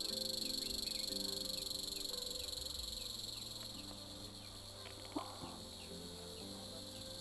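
A steady insect chorus of crickets or cicadas buzzing, over soft background music of sustained low notes. A single sharp click about five seconds in.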